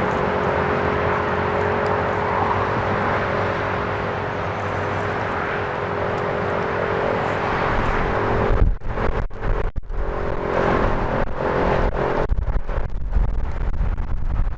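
Federal Signal STH-10 rotating outdoor warning siren sounding a steady tone during its attack-signal test, fading out between about eight and twelve seconds in. From about eight seconds in, strong wind buffets the microphone with low rumbling gusts.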